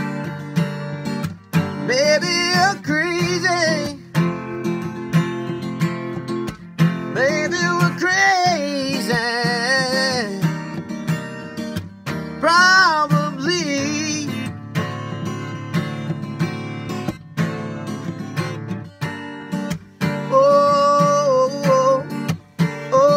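Acoustic guitar strummed steadily, with a man singing over it in gliding, bending phrases. The voice drops out for several seconds in the second half, leaving the guitar alone, then comes back near the end.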